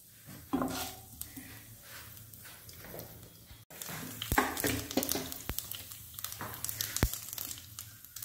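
Mustard seeds, with fenugreek and cumin, spluttering in hot oil in a kadai: scattered sharp pops and crackles that grow thicker after the first few seconds.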